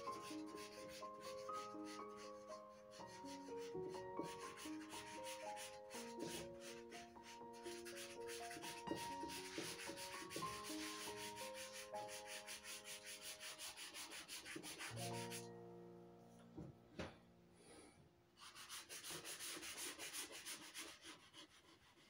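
Charcoal scratching across drawing paper in quick, repeated hatching strokes, over soft background music of slow melodic notes. The strokes stop for about three seconds around two-thirds of the way through, then start again.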